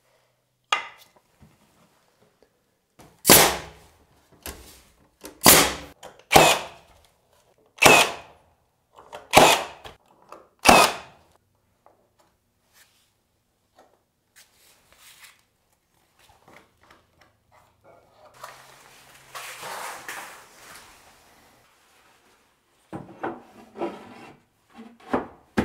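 A nail gun firing seven shots, about one every second or so, fastening baseboard trim. Later come a stretch of rustling handling noise and a few light wooden knocks near the end.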